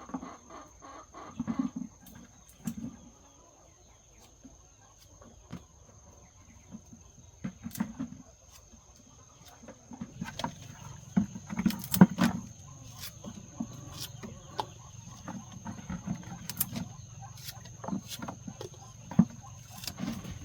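A flock of chickens clucking, with many scattered sharp taps and clicks. It gets busier about halfway through, and the loudest click comes about two-thirds of the way in.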